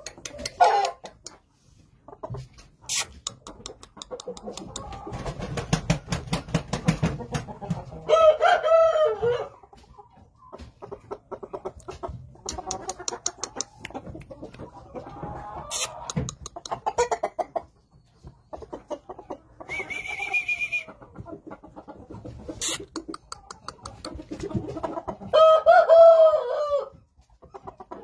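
Yamato gunkei rooster crowing twice, each crow short, about a second and a half long. There are quieter calls and short clicks in between.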